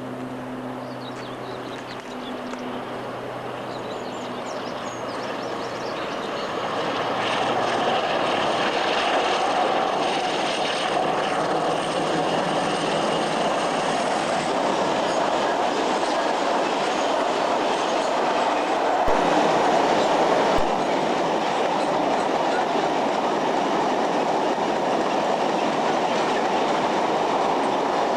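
Freight train passing on the mainline, its wagon wheels clicking over the rail joints. The rumble grows louder over the first several seconds, then holds steady.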